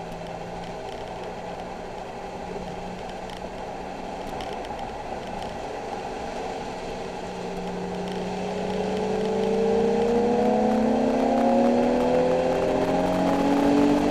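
Nissan 370Z's 3.7-litre V6 engine running steadily at first, then accelerating, its note climbing slowly and getting louder from about halfway through.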